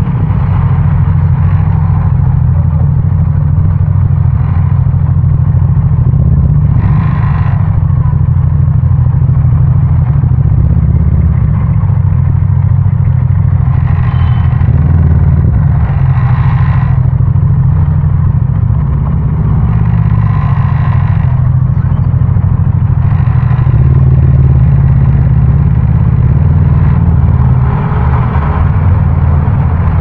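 Motorcycle engine running steadily while riding through city traffic, a loud low drone. Several brief swells of higher noise rise over it.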